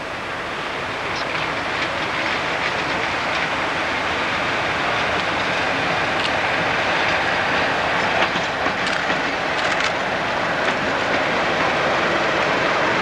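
Class 37 diesel locomotive with its English Electric engine running as it approaches and passes close by, growing louder over the first couple of seconds and then steady. A scatter of sharp wheel clicks on the rails comes through in the middle.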